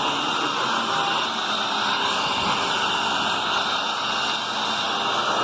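Hoover Tempo Widepath upright vacuum cleaner running steadily, its motor giving a loud, even whoosh with a faint whine.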